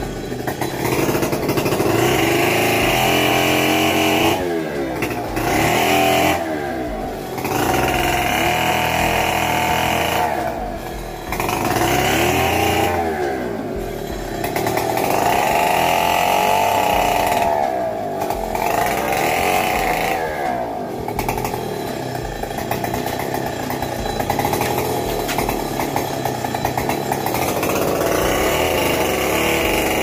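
Chainsaw running at high revs in repeated spells of a few seconds, dropping back briefly between them, as the fallen teak tree is cut up.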